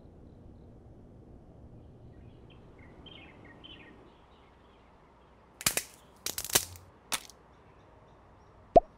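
Faint chirps, then about four sharp clicks in quick succession, followed near the end by a single short pitched blip.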